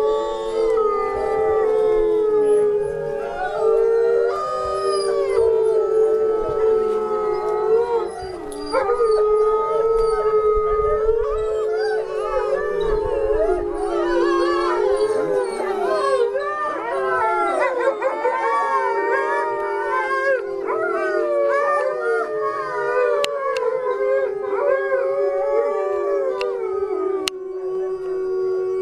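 Several wolves howling together in a chorus: many long howls overlapping, each gliding up and down in pitch, with one lower held note running under them.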